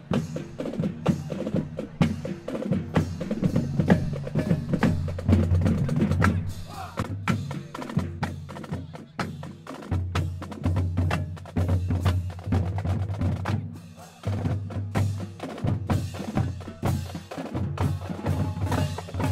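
Marching band drum line playing a cadence: rapid snare drum strokes and rolls over bass drum beats.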